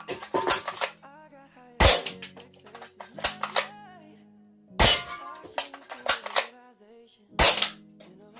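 An airsoft BB gun fired three times, about two and a half to three seconds apart, each sharp shot followed by a few lighter clicks. Music plays underneath.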